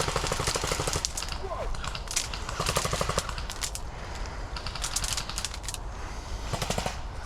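Airsoft electric gun, a BOLT MP5K with recoil system, firing on full auto in several short bursts of rapid clicking shots while covering a retreat.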